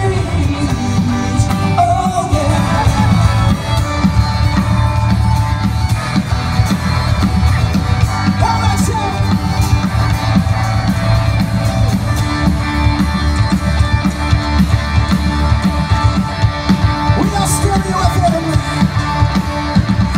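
A rock band playing a song with a singer, over a steady beat and bass.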